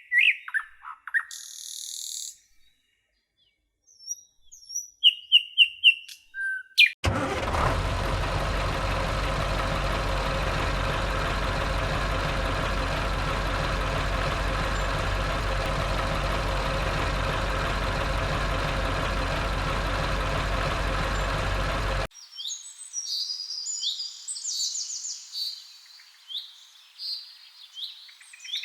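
Birds chirping and tweeting, broken by about fifteen seconds of a steady machine drone that starts abruptly and cuts off just as suddenly, after which the chirping resumes.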